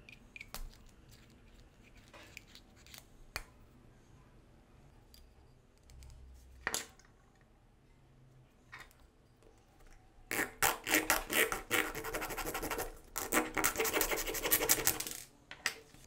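Rapid back-and-forth scraping on a small plastic syringe part, in two spells with a short break between them in the second half. Before that come a few light clicks of the plastic parts being handled.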